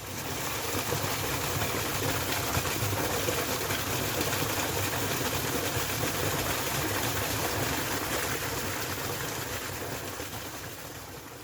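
Rushing water from a waterfall, a steady roar with no break. It fades in at the start and begins to fade away near the end.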